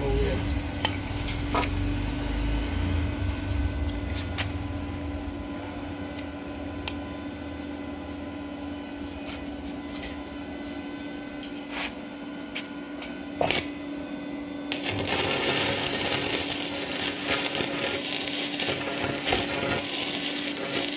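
Stick electrode arc welding on square steel tubing. A welding machine's steady hum with a few sharp clicks, then about fifteen seconds in the arc is struck and keeps up a steady crackling hiss.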